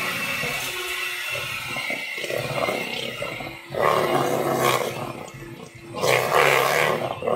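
Electric hand mixer running with its beaters in wet cake batter, a steady motor hum with two louder stretches of rushing noise about four and six seconds in as the beaters churn the batter, just after the liquid has been added.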